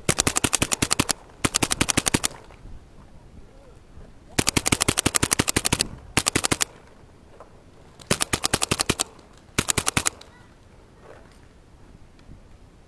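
WGP Oracle mechanical Autococker paintball marker firing six quick strings of shots, each a rapid run of sharp pops lasting up to about a second and a half, with short pauses between; after the last string, some ten seconds in, the firing stops.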